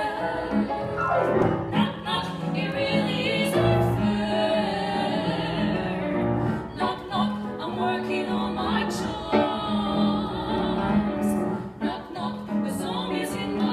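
Three women singing together in harmony with vibrato, accompanied by a grand piano. About a second in, the voices slide down in pitch.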